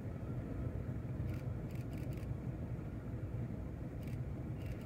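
A steady low engine rumble with a few faint clicks, a cluster about a second in and two more near the end.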